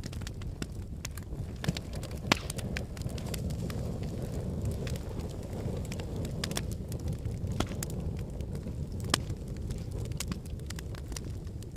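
Wood fire crackling in a fireplace: irregular sharp pops and snaps over a low steady rumble of the flames, with a few louder pops.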